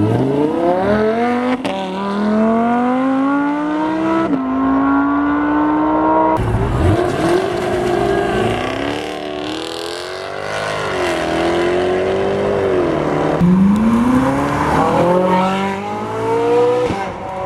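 Supercar engines accelerating hard through the gears, the pitch climbing and then dropping at each upshift, several times over. The sound changes abruptly a few times.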